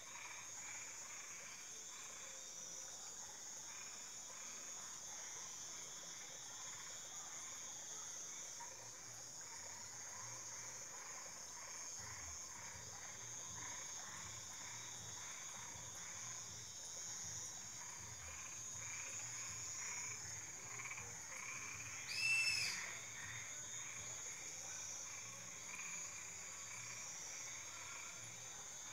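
Night chorus of frogs calling in short repeated notes over a steady high insect drone. About three-quarters of the way through, one brief, louder high-pitched call stands out.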